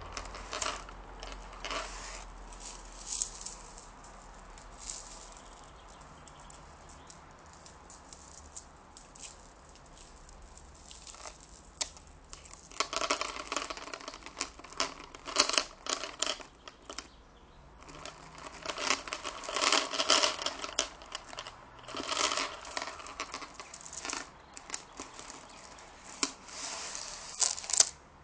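Close-up crinkling and rustling, an object being handled in quick crackly strokes: scattered at first, then in dense bursts over the second half.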